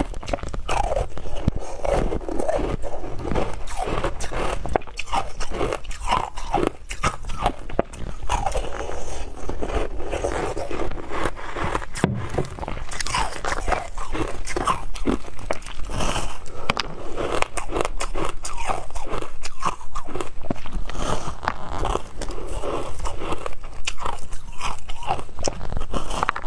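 Close-up crunching and chewing of pink shaved ice topped with passion fruit pulp: a dense run of crisp, irregular bites and crunches, continuing throughout.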